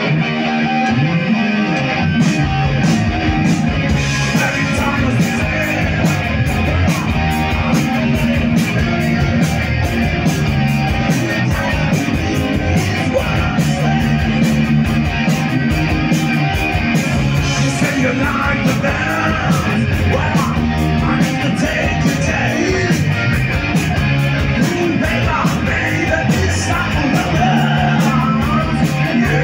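A live rock band playing loudly: distorted electric guitars and bass, with a steady drum beat that comes in about two seconds in, and singing over the top.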